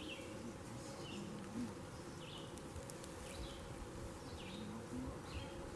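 Faint outdoor ambience in a pause between siren announcements: a steady faint drone, with short, high, falling chirps about once a second.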